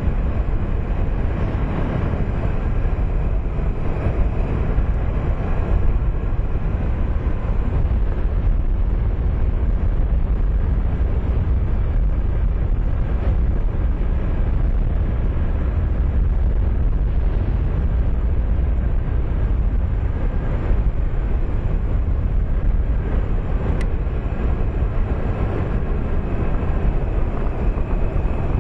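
Motorcycle riding at a steady speed: the 2008 Honda Nighthawk 250's air-cooled parallel-twin engine running under a steady rumble of wind on the microphone.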